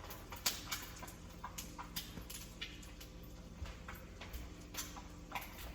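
Eggs frying in butter in a pan: faint, irregular crackles and pops, a few a second, over a low steady hum.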